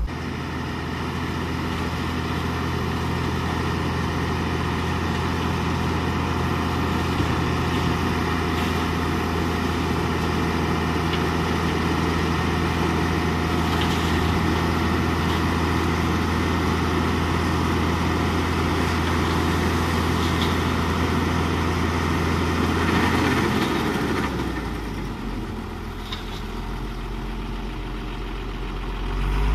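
Heavy diesel engine of earth-moving machinery running steadily. About four-fifths of the way through it eases off, then it picks up again right at the end.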